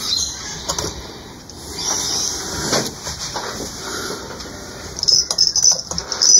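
Wiring and a relay on an electro-mechanical pinball machine's relay board being handled by hand: irregular rustling with a few light clicks, busiest and loudest in the last second or so.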